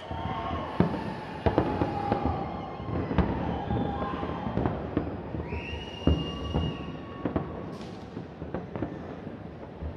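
Aerial fireworks going off in an irregular series of sharp bangs, sometimes several a second, over a steady rumbling background.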